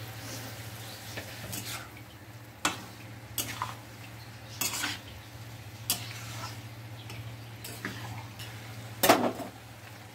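Flat metal spatula scraping and knocking against a black wok while stirring a wet paneer and vegetable masala, in scattered short strokes, the loudest about nine seconds in. The freshly watered masala sizzles faintly under a steady low hum.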